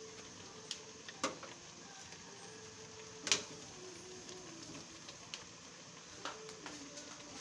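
Jackfruit strips in sugar syrup boiling in a steel pan: a low steady bubbling hiss with a few sharp pops or clicks, the loudest about three seconds in.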